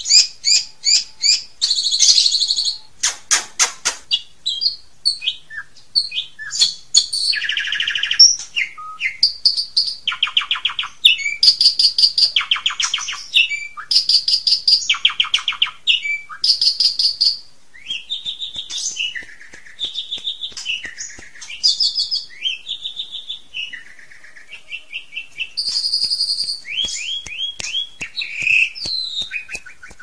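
Asian pied starling (jalak suren) singing a long, varied song: a quick run of short whistles and chirps broken by several fast rattling trills of about a second each, with softer chattering notes in the second half.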